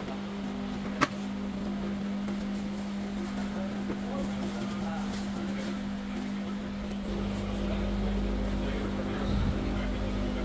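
A steady mechanical hum, with a sharp click about a second in and a deeper low rumble setting in about seven seconds in.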